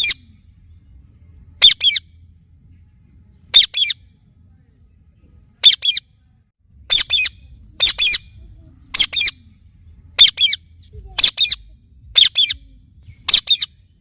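Indian ringneck parakeet calling in short, shrill squawks, mostly in quick pairs, repeated every second or two and coming closer together in the second half.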